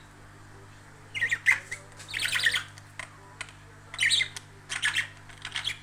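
Budgerigar chattering and squawking in a string of short bursts, starting about a second in.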